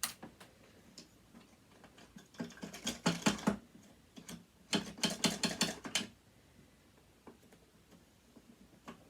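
Sewing machine's metal parts clicking and rattling as they are worked by hand: a single click, then two quick runs of rapid clicks of about a second each.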